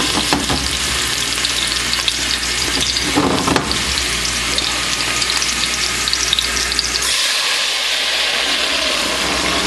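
Blended tomato sauce and onion frying in hot canola oil in a pot, with a steady sizzle and fine crackling and some stirring.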